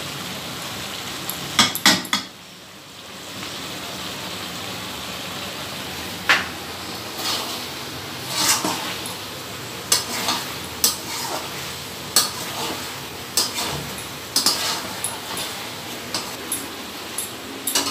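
A metal spatula scraping and clinking irregularly against a metal kadai as chicken is stirred and turned, dry-fried without oil, with the pan sizzling steadily underneath.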